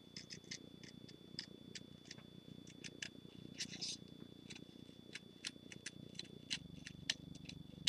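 Small scissors snipping black cardstock in short, quiet, irregular cuts while cutting out a shape, over a steady low rumble.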